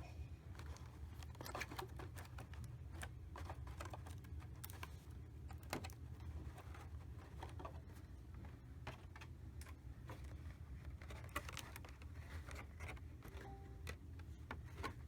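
Scattered small clicks and light rustles from handling a plastic anime figure and its packaging, over a steady low hum.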